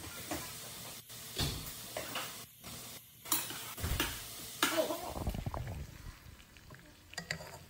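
Sliced smoked sausage sizzling in a little grease in a pot while it is stirred, with several sharp knocks and scrapes of the utensil against the pot.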